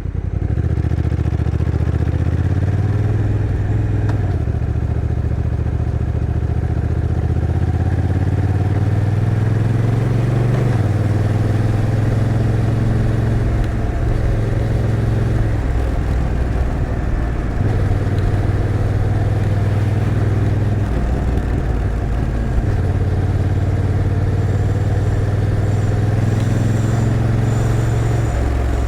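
Honda NT1100's 1,084 cc parallel-twin engine running under way, its note stepping up and down in pitch several times as the dual-clutch gearbox changes gear.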